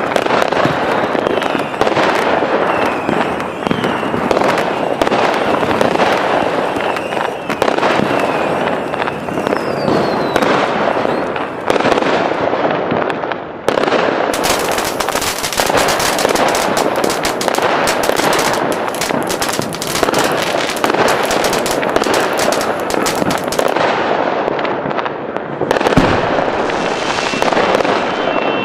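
Fireworks going off continuously, a dense mix of bangs and crackling, with a few short whistles in the first half. From about halfway through, the crackling becomes a thick, rapid run for about ten seconds. One sharp bang stands out near the end.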